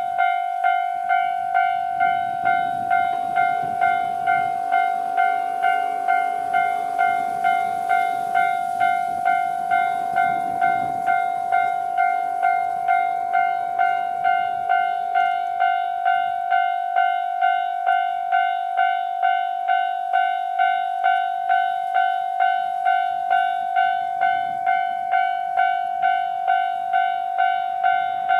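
Japanese level-crossing bell ringing in a steady repeated ding, about one and a half strikes a second. A KiHa 261 series diesel express train runs through the crossing with a low rumble from about two to eleven seconds in.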